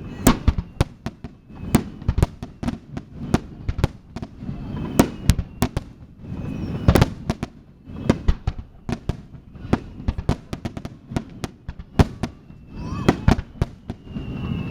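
Fireworks finale: rapid volleys of aerial shells bursting, many sharp bangs a second with no let-up, and a few faint whistles among them.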